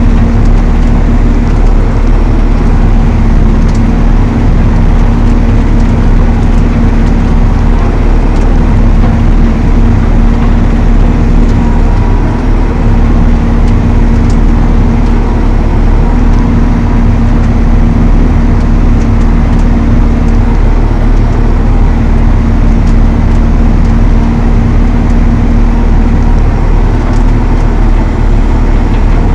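Valtra T214 tractor running steadily under load while driving an Elho Tornado chain flail mower: a loud, unbroken engine drone with a constant low hum.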